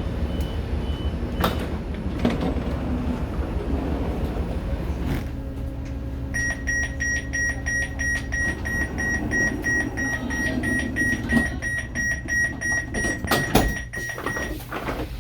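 Door warning beeps on an Amtrak NextGen Acela (Alstom Avelia Liberty) train. A brief run of higher beeps fades out early. About six seconds in, a fast, evenly repeating beep starts and runs for about eight seconds as the doors close. Under it is a steady low rumble, and a loud thump comes near the end.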